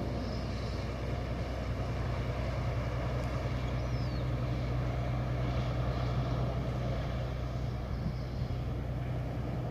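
Steady low drone of a passing motor boat's engine.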